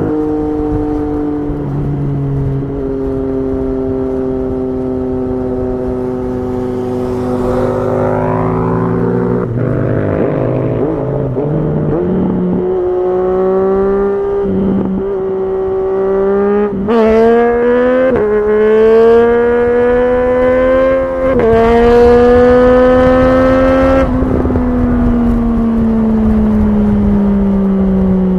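Triumph Street Triple 765's three-cylinder engine under way: it runs steadily at first, then pulls hard with its pitch climbing and breaking briefly at each gear change. About two-thirds in the throttle closes and the pitch sinks as the bike slows.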